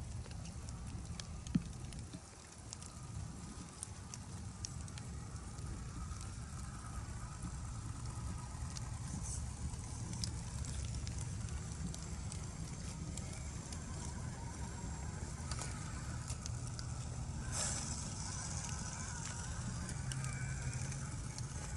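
Micro RC crawlers with brushless motors working slowly over dirt, twigs and rocks: scattered small clicks and crackles from tyres and chassis on the terrain, over a faint whine that wavers in pitch and a steady low rumble.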